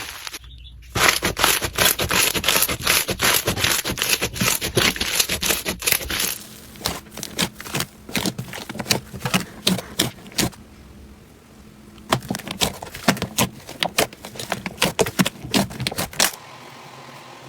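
Crunchy slime being squeezed and pressed, giving a dense run of crackling clicks that thins out about six seconds in, pauses briefly, then comes back in scattered clicks.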